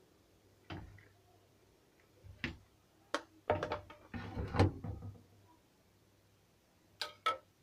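A plate being moved and set down on a stone countertop: a string of separate knocks and clatters, thickest in the middle, then two sharp clicks near the end.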